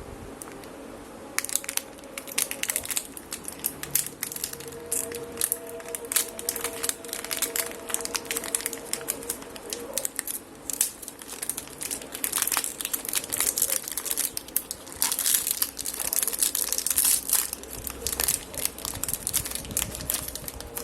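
HP 680 ink cartridge packaging being torn open and handled by hand: crinkling and crackling in quick irregular bursts, starting about a second in.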